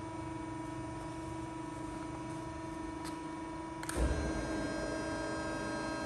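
Steady electrical mains hum from powered workshop machinery. A short knock comes about four seconds in, and after it the hum carries on with a changed set of tones and a little more low rumble.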